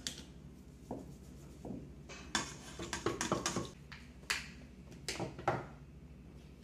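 Scattered light clinks and taps of rock painting: paintbrushes knocking against a plastic water cup and paper palettes, and rocks set down on the tabletop. The taps come thickest through the middle.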